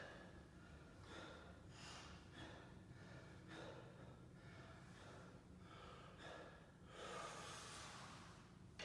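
Faint, quick repeated breaths of a person, a breath about every half second to second, with a longer breath near the end.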